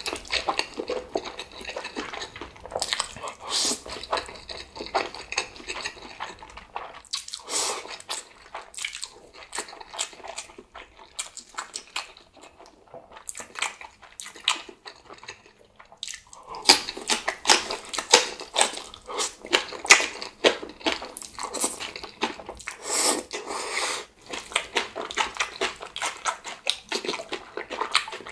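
Close-miked eating of instant black bean noodles (Jjapagetti) and green onion kimchi: continuous wet chewing, biting and crunching in irregular bursts, with a short pause about sixteen seconds in.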